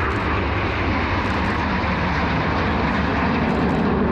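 Jet noise from the Frecce Tricolori formation of Aermacchi MB-339 jet trainers flying past overhead: a steady rushing roar from their turbojet engines.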